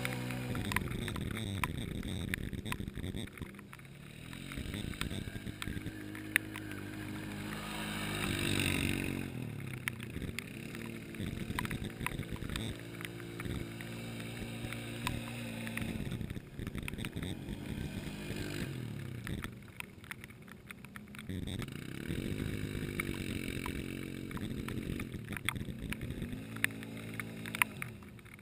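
Two ATV single-cylinder engines, a Can-Am Renegade 500 and an Arctic Cat 450 XC, revving up and down again and again as they ride through a mud bog. There is a brief louder rushing noise about eight seconds in.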